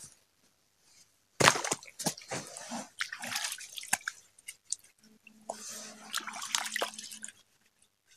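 Hands splashing and rinsing in shallow lake water, with drips, starting about a second and a half in.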